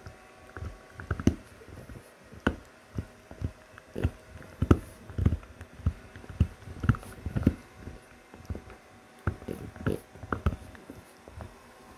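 French bulldog gnawing on a hard chew stick: its teeth bite down in sharp crunching clicks and thuds, uneven, about one or two a second.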